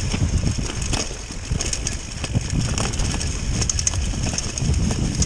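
Mountain bike descending a rough, leaf-covered dirt trail at speed: a continuous low rumble of tyres over the ground, many quick knocks and rattles as the bike jolts over bumps, and wind on the microphone.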